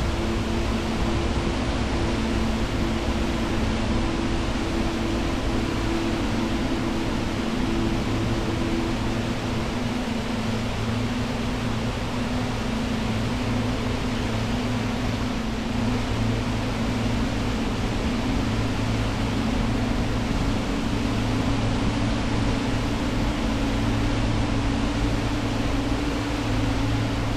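The Eas Fors waterfall: a steady, loud rush of falling water. Some low steady tones run beneath it and change pitch about ten seconds in.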